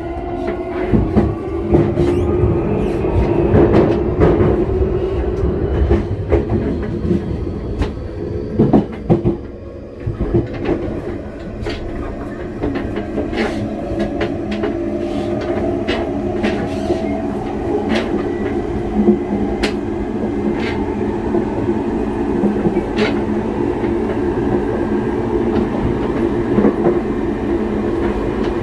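Nankai 8300- and 12000-series electric train running, heard from inside at the coupling between the two cars. Motor whine rises in pitch as the train picks up speed, over a steady running hum, with frequent clicks of the wheels over rail joints.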